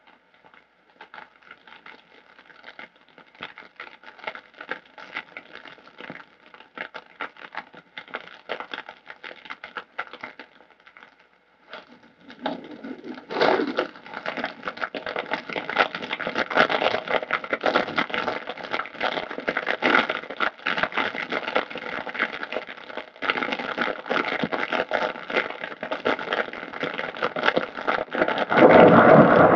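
Dry grass burning with a dense, irregular crackle and snapping. It is sparse and quiet at first, then grows much louder and thicker about thirteen seconds in. A heavier rushing sound joins just before the end.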